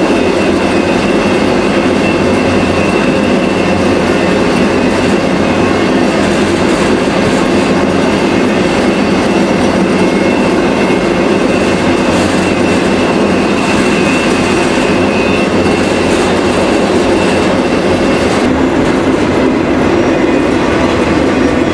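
Freight train running at speed, heard from the deck of one of its cars: the loud, steady noise of the wheels on the rails and the cars rattling, with a faint high whine running through it.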